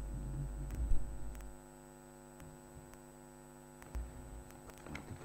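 Steady electrical mains hum with a low rumble underneath; the rumble drops away about a second and a half in and returns near four seconds, with a few faint knocks.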